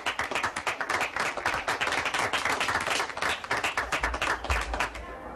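Applause: many hands clapping, thinning out near the end, with a few low thumps in the last second or so.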